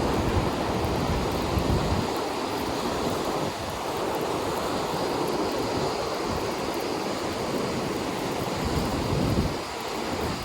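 Rough ocean surf washing onto the beach, with wind buffeting the microphone in low rumbles.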